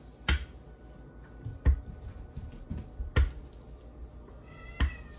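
Plastic rolling pin working sticky cinnamon roll dough on a silicone mat: four short knocks about a second and a half apart, one at each rolling stroke.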